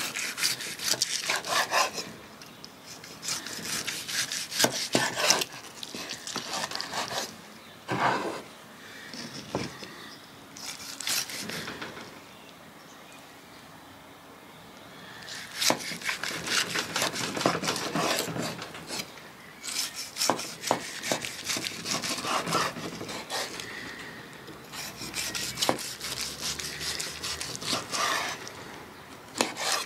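Large Giesser knife sawing back and forth through a thick grilled steak on a wooden cutting board, in repeated rubbing strokes with occasional sharp taps. There is a pause of a few seconds in the middle.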